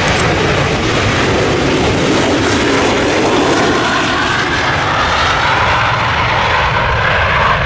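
McDonnell Douglas MD-80-series ('Mad Dog') airliner's two rear-mounted jet engines at takeoff thrust as it speeds down the runway on its takeoff roll: a loud, steady jet noise with a whine that grows and climbs a little in pitch in the second half as the jet passes.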